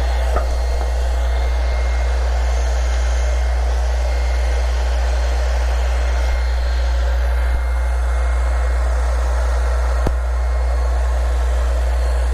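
Steady mechanical whir over a strong constant low hum, with three light clicks.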